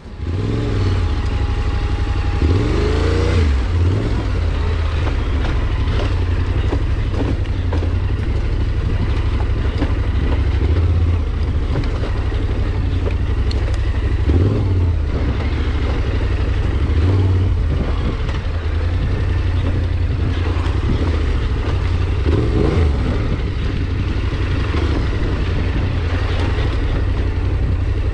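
A vehicle engine running steadily, rising briefly in pitch as it revs a few times.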